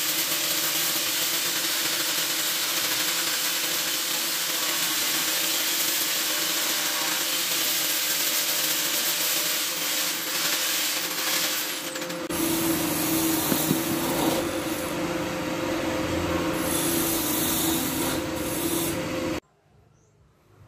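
Hand-held angle grinder with a sanding attachment running against wood, a steady rasping of abrasive on the inside of a wooden vase over the motor's whine. About twelve seconds in, the sound shifts abruptly to a fuller, lower grind, and it cuts off suddenly about a second before the end.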